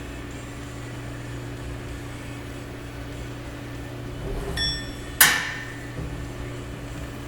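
Steady electrical hum of shop equipment, then a brief metallic ring and, about five seconds in, one sharp metal-on-metal clank that rings out for a moment.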